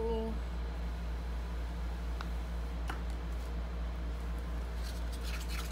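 Steady low hum of room noise, with a couple of faint ticks and a brief rustle near the end.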